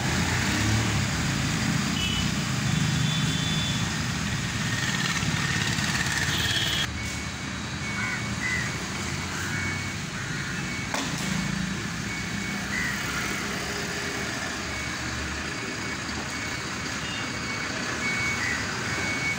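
Heavily loaded goods truck running slowly with a low engine rumble. About seven seconds in, a reversing beeper starts repeating a short high beep at a steady pace.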